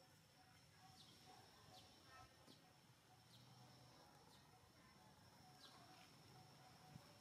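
Near silence: faint outdoor ambience with several short, falling bird chirps about a second apart over a steady high-pitched whine.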